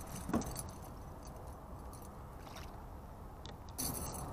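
Faint steady background noise, then near the end a brief metallic jingle of a chain fish stringer and its snap clips being lifted.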